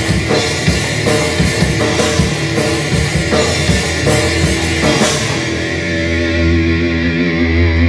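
Live heavy rock band playing loud and without vocals: electric guitar, bass guitar and drum kit. About five seconds in the drums stop, and the guitar and bass hold ringing notes.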